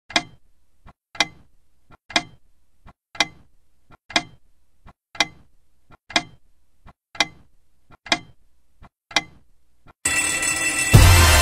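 Wall clock ticking once a second, about ten loud ticks, each followed by a much fainter click. Loud music comes in near the end.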